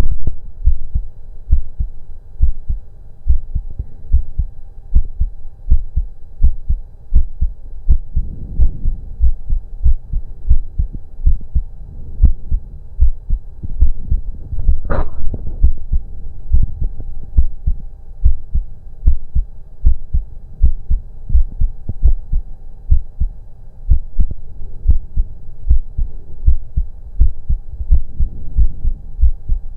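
Human heartbeat heard through a stethoscope on the chest: steady, evenly repeating lub-dub thumps over a faint steady hum. About fifteen seconds in there is one brief, sharper noise.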